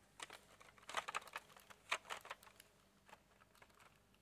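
Faint, irregular clicks and taps of a plastic makeup palette case being handled, thinning out near the end.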